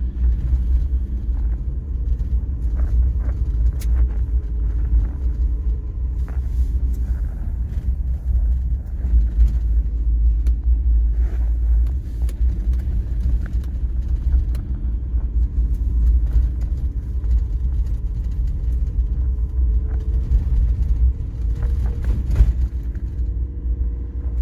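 Car driving, heard from inside the cabin: a steady low rumble of engine and tyres on the road, with scattered light knocks and a sharper knock near the end.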